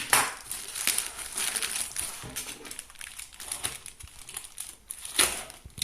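Parcel packaging crinkling and crumpling in irregular rustles as it is handled and opened. The loudest rustles come just after the start and about five seconds in.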